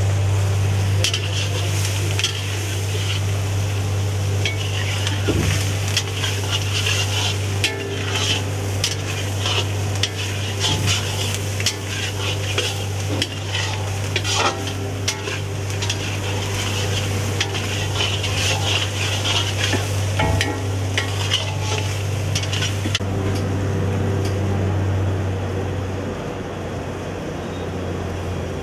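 A long metal ladle stirring and scraping chicken liver pieces around an iron kadai, with clinks of metal on metal over the sizzle of frying, under a steady low hum. The stirring stops a few seconds before the end, leaving the hum and a softer sizzle.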